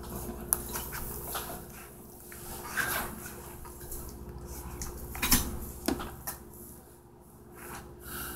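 Scattered light knocks, clinks and rustles of a person settling in at a table, over a faint steady hum.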